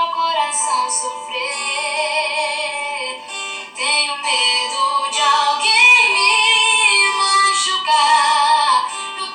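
A woman singing a slow love song over instrumental backing with plucked strings. She holds long notes with vibrato, with a short break between phrases a little over three and a half seconds in.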